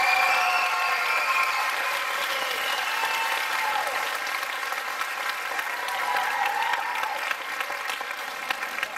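Audience applauding, with a few voices calling out over it; the applause slowly fades away.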